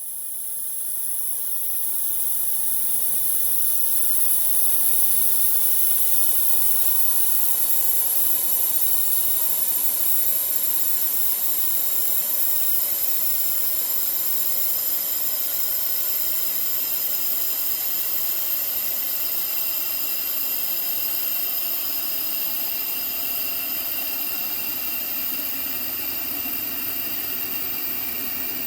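Ominous suspense sound-effect drone, a designed sound of foreboding. It is a sustained high hiss layered with several steady tones that drift slowly, fading in over the first few seconds and then holding.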